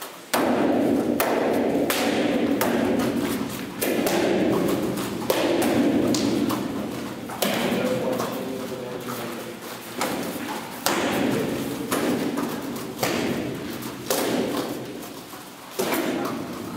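A group of taekwondo students performing a poomsae together: bare feet stamping and uniforms snapping on each move. About a dozen echoing thuds come one to two seconds apart.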